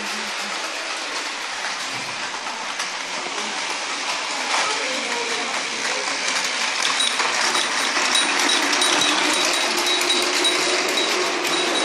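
Motorized toy trains running on plastic track: a steady small-motor whir with rattling wheels, growing louder about halfway through as a faint high whine joins in.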